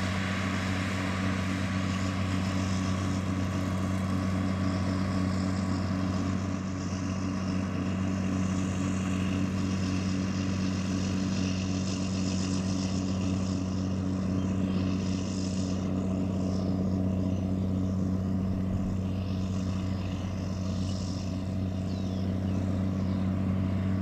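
John Deere 4450's turbocharged six-cylinder diesel running steadily under load, pulling a round baler through a windrow.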